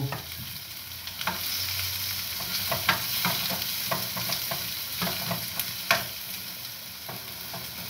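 Chopped onions sizzling as they fry in a stainless steel frying pan, stirred with a metal spoon that scrapes and clinks against the pan at irregular moments; the sharpest clink comes about six seconds in.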